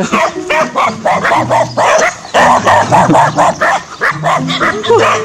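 Dogs barking and yipping in a quick run of repeated barks.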